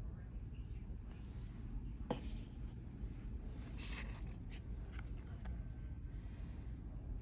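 Unboxing handling sounds: a few light clicks and scrapes as the round plastic base station is lifted from its molded cardboard box tray, over a steady low hum.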